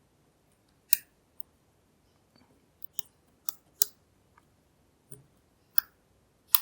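Lock pick clicking and tapping against the pins inside a NEMEF NF4 dimple lock: irregular sharp metallic clicks, about half a dozen loud ones with fainter ticks between.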